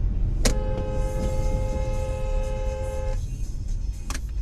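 Car horn sounding one held blast of nearly three seconds, two notes together, that cuts off suddenly, over steady road and engine rumble. A sharp click comes near the end.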